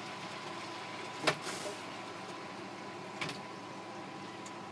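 Pan of simmered vegetables and chicken on a portable cooktop giving a steady hiss with a faint steady tone, while mirin is poured in from a plastic bottle. Sharp knocks from the bottle being handled: one just over a second in, a softer one past halfway, and the sharpest at the very end.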